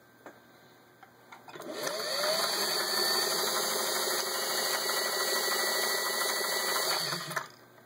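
Vintage 1959 Singer 403A sewing machine speeding up, running fast and steadily while stitching a zigzag pattern driven by its cam, then stopping abruptly about seven seconds in. A few light clicks come before it starts.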